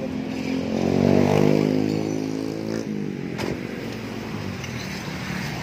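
Yamaha XMAX 250 scooter's single-cylinder engine running through a gutted (bobokan) muffler. It rises in revs to a peak about a second in, drops back after about three seconds and keeps running more quietly. A sharp knock comes partway through. The exhaust note is one the owner finds too loud.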